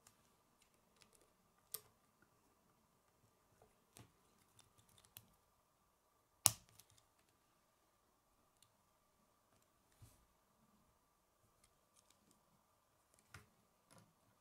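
Plastic K'nex pieces clicking as they are handled and snapped together: scattered sharp clicks, the loudest about six and a half seconds in, with a few more near the end.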